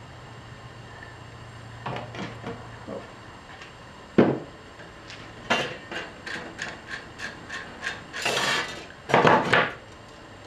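Hand threaded-rivet (rivet nut) tool working a steel rivet nut: scattered clicks, a sharp knock, then a run of about three metal clicks a second, ending in two longer scraping squeezes. This setting pass leaves the rivet nut not tightened up.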